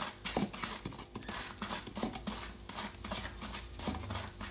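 Wooden stick stirring thick dishwashing-soap paste in a plastic bucket, scraping and knocking against the bucket in a steady beat of about three strokes a second.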